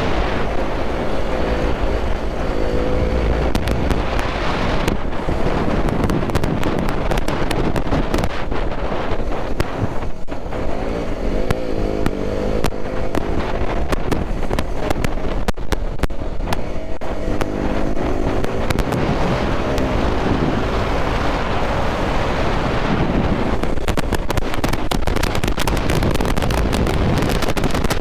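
Single-cylinder KTM motorcycle engine under way, its pitch climbing in several runs as it accelerates, with heavy wind buffeting on the microphone.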